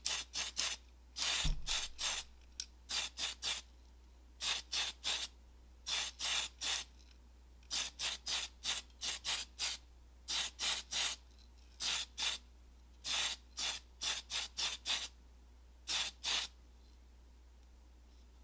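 Aerosol can of Tamiya white primer spraying in short hisses, each about a fifth of a second, in quick clusters of two to four, laying primer coats on a small model part. About one and a half seconds in comes one longer hiss with a low bump.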